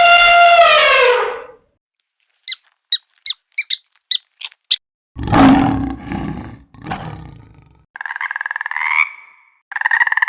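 A sequence of different animal calls: a long pitched call that falls away at the start, a quick run of about eight short high chirps, then a loud rough roar a little past the middle, and two buzzy calls near the end.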